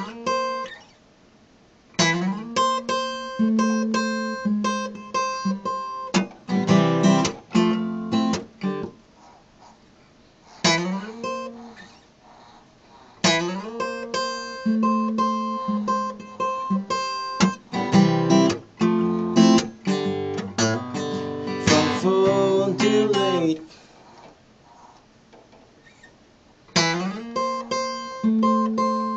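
Steel-string acoustic guitar playing an instrumental blues break, picked notes in phrases separated by a few short pauses.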